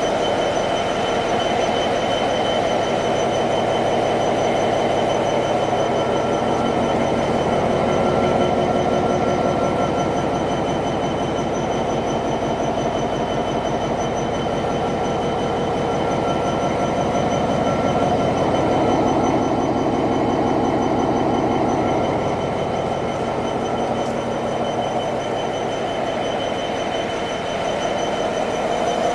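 Diesel locomotive engine running steadily, with a rapid, even beat of firing pulses and a steady high whine over it.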